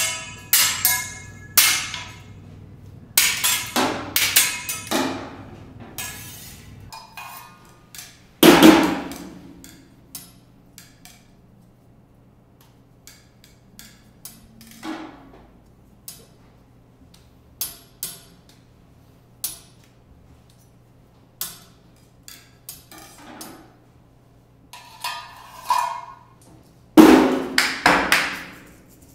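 A teppanyaki chef's steel knife, spatula and other tools clanging and clicking against each other and the griddle in a show routine. Quick flurries of strikes come at the start and near the end, with one loud clang about eight and a half seconds in and scattered taps in between, over a faint steady low hum.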